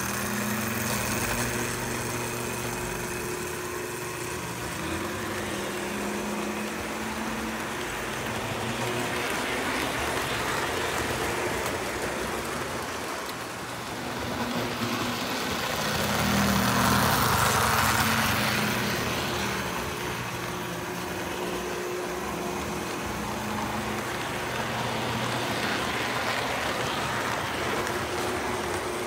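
Lionel O gauge model train running on three-rail track: a steady electric hum with the rumble of wheels on the rails, growing loudest about two-thirds of the way through as the cars pass closest.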